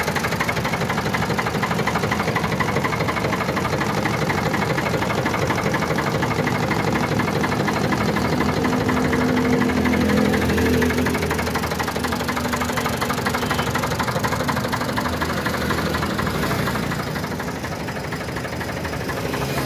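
Ford 4600 tractor's three-cylinder diesel engine idling with a steady diesel clatter, heard close up. It gets a little louder around the middle and softer near the end.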